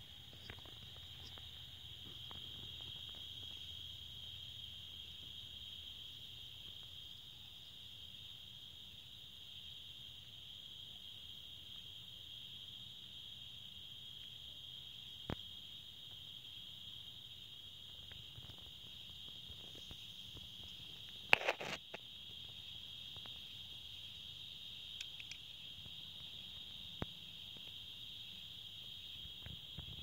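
Steady, high-pitched chorus of night insects, a continuous shrill buzz. A few faint single clicks, and about two-thirds of the way through a short, louder burst of crackling clicks.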